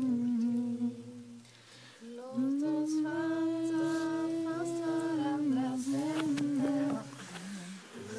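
Voices humming a slow, wordless tune in long held notes, with a brief dip about a second and a half in before the melody rises again.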